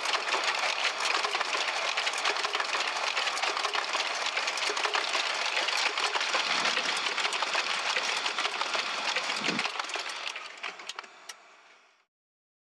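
Dense, steady rattling noise full of rapid small clicks, fading out over the last two seconds and then stopping abruptly.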